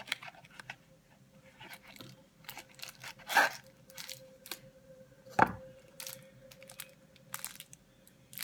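Cardboard and plastic packaging being handled and pulled open: scattered rustling and crinkling, with two louder crackles about three and a half and five and a half seconds in.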